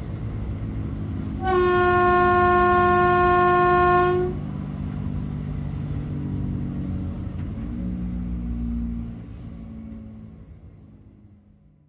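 Ride noise heard from inside a moving train: a steady low rumble. About one and a half seconds in, the train horn sounds one long single-note blast of nearly three seconds. The rumble then fades away near the end.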